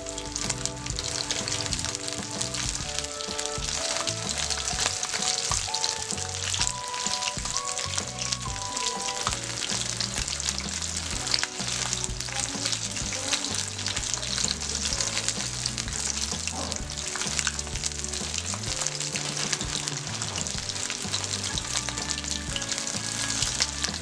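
Breadcrumb-coated pineapple chunks deep-frying in hot oil in a wok: a steady crackling sizzle of tiny pops. Softer background music plays underneath.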